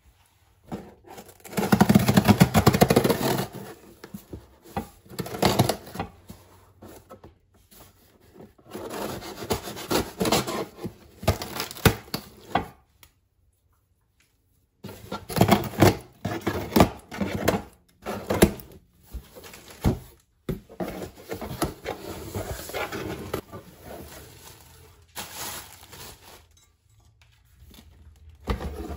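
Irregular bouts of rubbing and scraping, broken by short pauses and one brief silence about halfway through.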